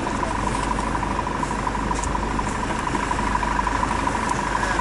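Vehicle engine idling steadily, with a constant high whine over it and a few light clicks.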